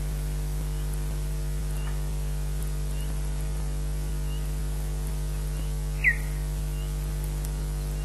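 Steady electrical mains hum from the nest camera's audio line, with a few faint high bird chirps and one short, clear, falling bird call about six seconds in.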